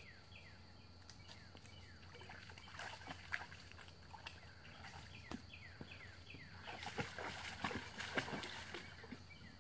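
A dog splashing faintly as it wades through a shallow creek, the splashes bunched toward the end. A bird sings runs of repeated falling notes near the start and again midway.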